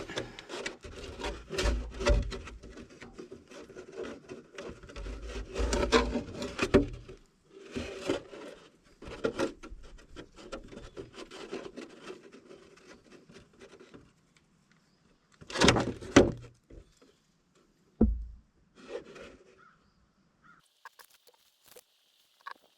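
Plastic milk jug being handled and set in place under the engine to catch draining oil, with irregular rubbing, scraping and clicking. A few louder knocks come about two-thirds of the way through.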